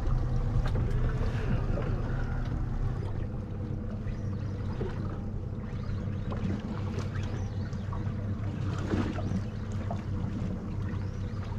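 A boat's engine idling steadily, with some wind noise on the microphone.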